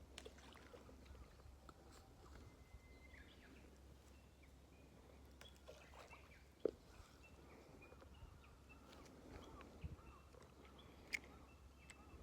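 Faint birdsong: scattered short, high chirps and little whistled glides over a low background hum, with a couple of sharp clicks, one about halfway through and one near the end.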